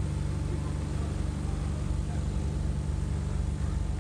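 Diesel engine of an Alexander Dennis Enviro 200 single-deck bus running with a steady low hum, heard from inside the passenger saloon.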